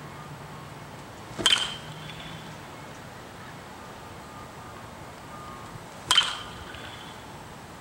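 Metal baseball bat hitting a ball twice, about four and a half seconds apart, each contact a sharp crack with a brief ringing after it.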